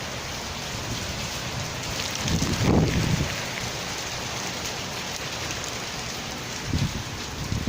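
Heavy rain pouring down in a steady hiss. A low rumble swells briefly about two and a half seconds in, and a smaller one comes near the end.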